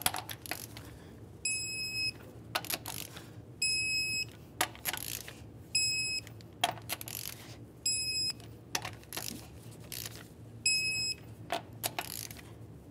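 Electronic torque wrench beeping each time a 19 mm lug nut reaches its set torque of 100 ft-lb: short high beeps about every two seconds, one per nut, with metallic clicks of the socket going onto and off the nuts between them.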